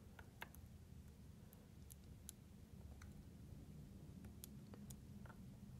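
Faint, irregular small metallic clicks and ticks of a lock pick being worked into the keyway of an ASSA Twin V-10 lock, over a low room hum.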